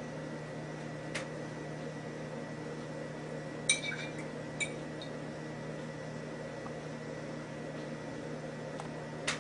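A silver earring being rinsed and handled in a ceramic bowl of water: a few light clinks, the sharpest a little under four seconds in with a short ring, over a steady low hum.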